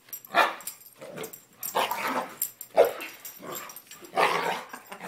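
A puppy growling and barking in rough play, mouthing at a person, in several short bursts.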